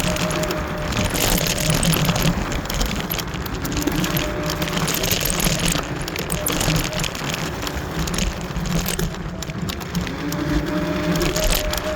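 Wind and tyre noise from riding a Wolf Warrior electric scooter. A faint high motor whine fades out and returns near the end.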